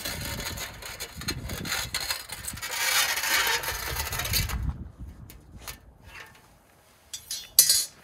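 Rubbing and scraping full of small clicks, lasting about four and a half seconds, then a few scattered clicks and a sharp knock near the end.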